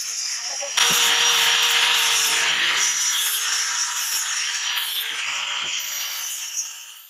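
Angle grinder with an abrasive disc grinding a leaf-spring steel knife blade. The motor runs lightly at first, the loud grinding hiss starts about a second in as the disc bites the steel, holds steady, and dies away near the end.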